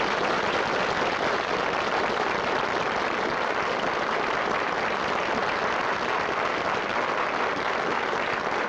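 Studio audience applauding at a steady level at the end of a song.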